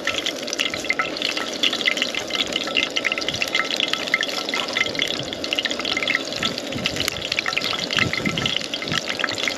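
Hot cooking oil sizzling and crackling steadily in a frying pan, with bits of leftover batter still in it.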